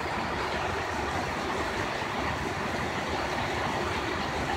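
Heavy rain falling steadily on a concrete driveway and shrubs: a dense, even hiss of rain.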